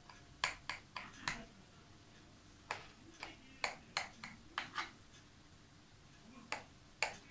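Kitchen knife cutting a cake in a glass baking dish, its blade clicking against the glass each time it is pressed through. The clicks come in three short runs of sharp ticks with pauses between.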